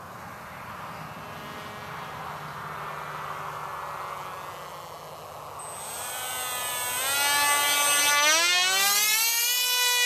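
Electric motor and propeller of a homemade foam RC plane whining in flight. The whine is faint and slowly drops in pitch at first. About seven seconds in it grows louder and climbs steeply in pitch as the throttle opens, then holds a steady high whine.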